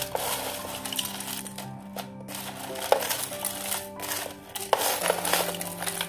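Crushed ice being scooped with a metal spoon from a tub and dropped into a glass: repeated crunching scrapes and clinks. Background music plays under it.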